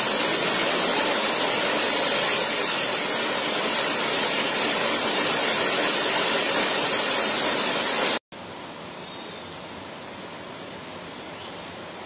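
Waterfall: a steady, loud rush of falling water that cuts off abruptly about eight seconds in, giving way to a much quieter steady hiss.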